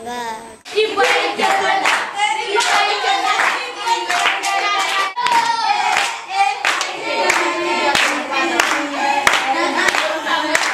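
A group of voices singing together to steady hand-clapping, about one and a half claps a second, keeping the beat for dancing.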